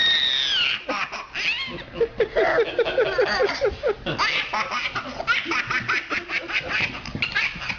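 A baby laughing hard: a high squeal that falls away at the start, then runs of quick, evenly spaced giggles, about five a second.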